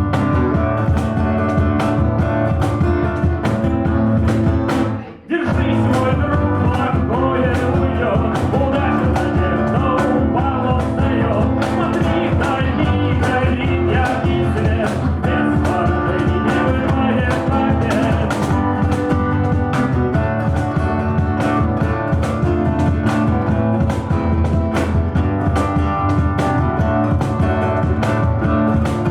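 Music with a steady beat. It drops out for a moment about five seconds in, then comes straight back.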